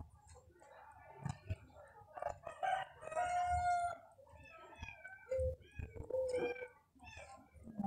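A rooster crowing once, the call ending in a long held note about three to four seconds in. Near the end a kitten mews in short, high, falling calls.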